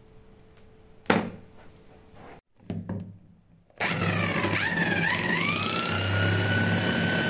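A sharp click about a second in, then an electric drill starts spinning a motorcycle magneto flywheel on an AC stator. Its high whine wavers as it runs up and then holds steady at around 3000 RPM, driving the stator to charge the CDI under test.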